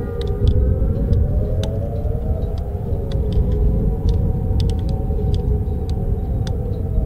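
Several distant outdoor warning sirens sounding together, their held wailing tones slowly wavering and sliding in pitch as they rotate, over a steady low rumble.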